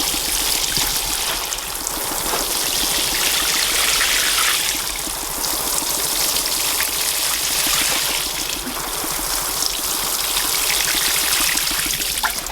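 Water pouring onto the compost of freshly planted potato containers, watering them in: a steady splashing hiss that swells and eases a little as the flow moves over the pots.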